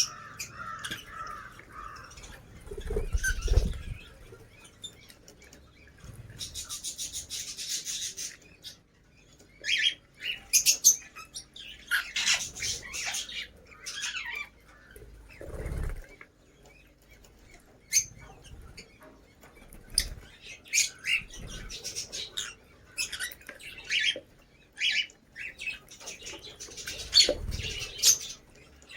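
Lovebirds chirping and squawking in short, busy calls, with wings flapping and a few low thumps now and then.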